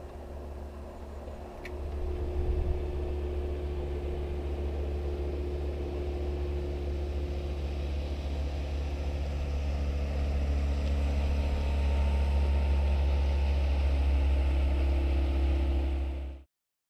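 An engine running steadily with a deep hum, getting louder about two seconds in and again partway through, then cutting off suddenly near the end.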